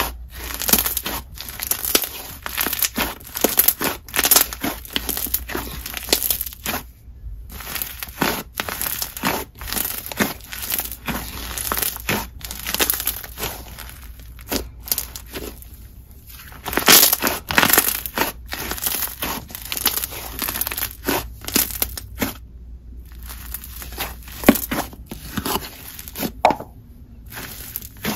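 Hands squishing, stretching and folding a purple jelly-icy hybrid slime, making a dense, irregular run of crackles and small bubble pops as trapped air bursts. A few brief silences break it up.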